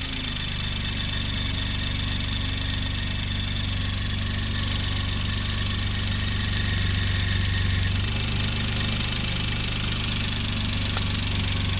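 Suzuki Alto Works' small three-cylinder engine idling with the alternator drive belt squealing (kyuru-kyuru) as it slips; the uploader thinks both the alternator and the belt need replacing. One high tone in the squeal drops out about eight seconds in.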